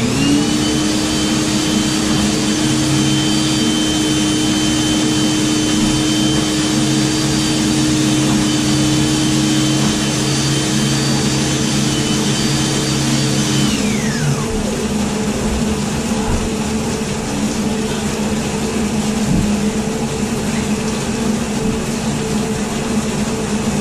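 RIDGID K9-306 flex-shaft drain machine spinning its cable in a grease-clogged drain line: a steady motor whine that starts up and then winds down with falling pitch about 14 seconds in. A constant hum runs underneath.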